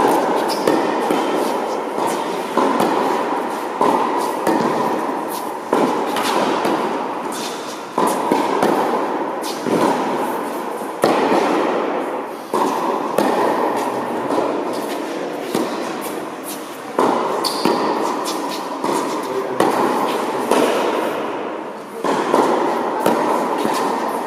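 Tennis balls struck back and forth in a rally on an indoor court, a sharp hit about every one and a half seconds, each followed by a long echo through the hall.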